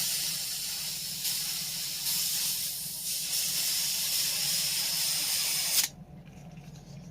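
Green gas hissing from the can into the Airsoft Innovations FLAK 10's gas reservoir as it is topped off; the hiss cuts off suddenly about six seconds in.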